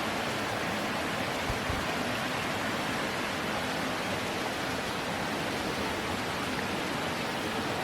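Steady, even rushing hiss, with a brief soft low thump about one and a half seconds in.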